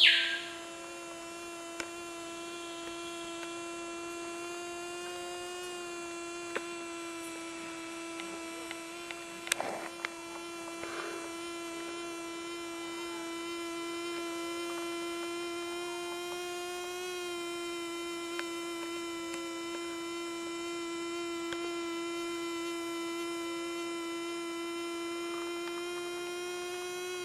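Wings of a hovering Mallophora robber fly buzzing in nuptial flight: one steady hum with many overtones, its pitch rising slightly a couple of times. A few faint clicks near the middle.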